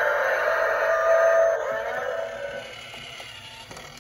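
Tinny recorded stomping sound effect played through the small speaker of a battery-powered Godzilla coin bank, fading over its last couple of seconds.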